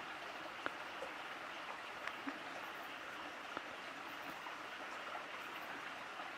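Faint, steady rushing background noise of the night outdoors, with a few light clicks scattered through it.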